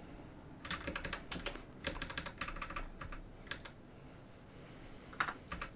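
Typing on a computer keyboard: quick runs of keystrokes with short pauses, a quieter stretch of about a second, then a last short run near the end.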